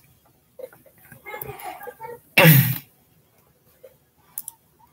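A person clears their throat once, hard and loud, about two and a half seconds in, just after a soft murmur of voice; a couple of faint clicks follow near the end.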